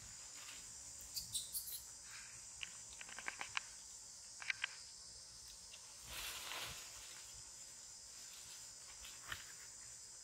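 Insects in the forest canopy buzzing in a steady high drone, with scattered sharp clicks and crackles of twigs and leaves as macaques move through the branches, and a brief rustle of foliage about six seconds in.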